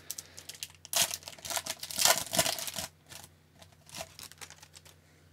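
Foil wrapper of a hockey card pack being torn open and handled: a run of crackling, crinkling rustles for about two seconds, then a few fainter rustles.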